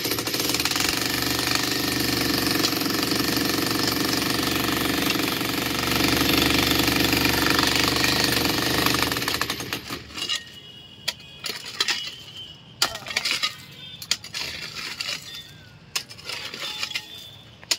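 Corded electric demolition hammer chiselling into a concrete slab: rapid continuous hammering for about nine and a half seconds, then it stops. After that come scattered knocks and clinks of broken concrete rubble being shifted.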